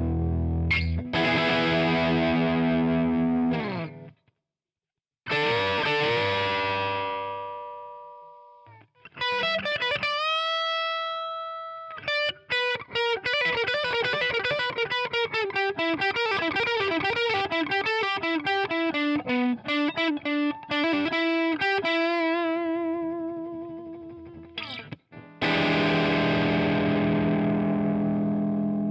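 Electric guitar with overdrive distortion, played through a Marshall amp model on a Zoom G2X Four multi-effects pedal. A chord rings out, then stops for about a second. A second chord is left to decay, followed by a held, bent note and a fast single-note lead run. It ends on a held note and another chord.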